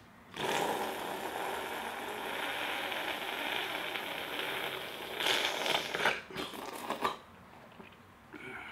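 Loud, crackly eating noise from a spoonful of tortilla soup at the mouth. It runs unbroken for about five seconds, then comes in a few sharper bursts and stops about seven seconds in.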